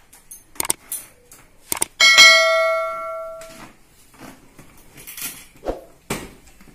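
Sound effect of a subscribe-button animation: a few quick clicks, then a single bright bell ding about two seconds in that rings out for about a second and a half. A couple of sharp knocks follow near the end.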